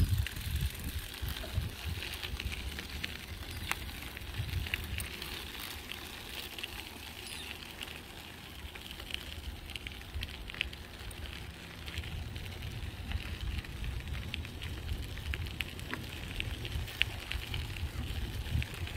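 Bicycle tyres rolling over a gravel trail: a steady crunching crackle of loose stones, with a fluctuating low rumble of wind buffeting the microphone on the moving bike.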